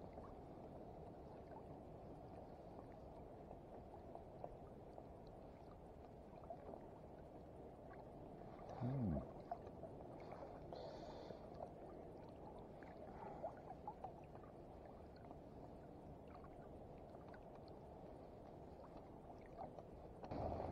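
Faint water lapping and gurgling against a kayak hull, with small clicks and taps from hands handling bait. About nine seconds in, a short low sound slides down in pitch.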